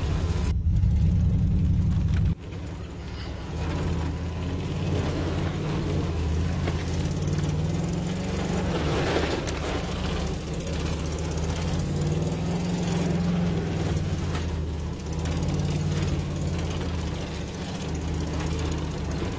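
Truck engine heard from inside the cab while driving through muddy puddles, its pitch rising and falling with the throttle. A louder rumble breaks off sharply about two seconds in, and a rush of splashing water comes about nine seconds in.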